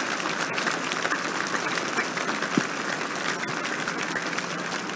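Large crowd applauding with dense, steady clapping.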